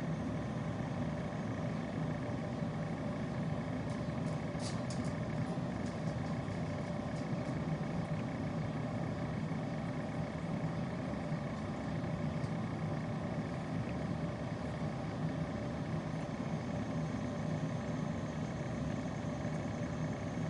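Steady low mechanical hum, with a few faint high ticks about four to six seconds in.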